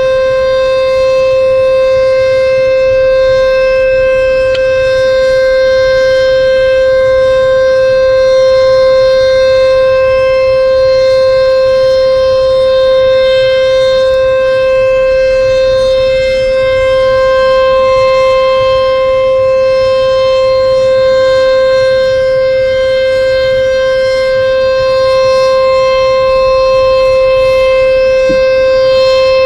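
Sentry 14VB tornado siren sounding a loud, steady single tone that holds its pitch without rising or falling.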